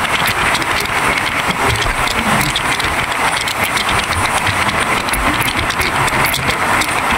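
Passenger train running at speed, heard from beside a carriage window: a steady rushing noise of air and wheels on the track, with a fine crackle of rapid small clicks.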